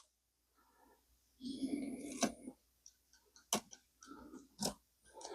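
Carriage of a Molle No. 3 typewriter being handled and moved on its rail: rubbing and rattling, then three sharp metallic clicks about a second apart.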